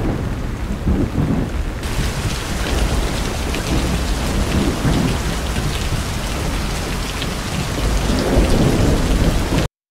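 Heavy rain pouring steadily, with low rolls of thunder rising and falling under it. The hiss turns brighter about two seconds in, and the whole sound cuts off abruptly near the end.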